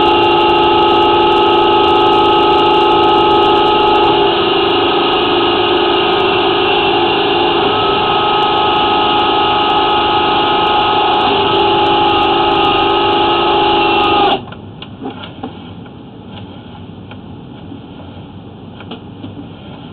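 Power drain-cleaning machine running with a steady whine while its cable cuts tree roots in a clay sewer line. It shuts off suddenly about fourteen seconds in, leaving quieter clicks and rattles.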